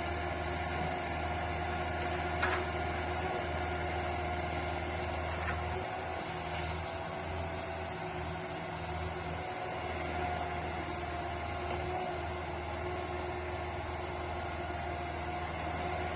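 Mini excavator's diesel engine running steadily at an even speed, with a steady hum and a couple of faint clicks.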